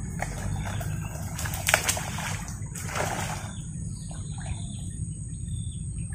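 Splashing on the creek surface as a fishing lure is worked across the water, with short sharp splashes about a second and a half in and again at about three seconds, over a steady high-pitched insect drone and a few bird chirps.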